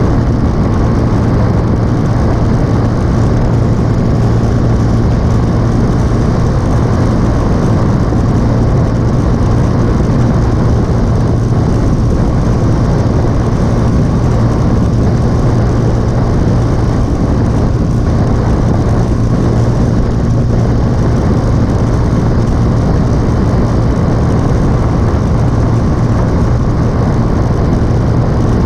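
Motorcycle engine running at a steady cruise, its low note holding constant, under a loud, even rush of wind and road noise on the helmet-mounted microphone.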